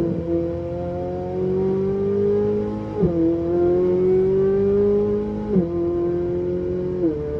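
Ferrari V8 with a loud aftermarket exhaust accelerating hard, its pitch climbing and then dropping sharply at each upshift, about three times.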